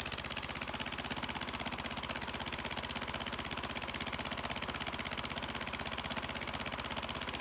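Freshly rebuilt Kohler Courage 20 hp engine running steadily on its first start after the rebuild, its exhaust pulses coming in a quick, even beat.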